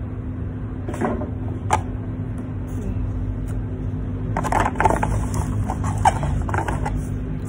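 Cardboard headphone box and packaging being handled and moved: two sharp knocks about a second in, then a run of clicks, taps and rustles from about halfway through. A steady low hum runs underneath.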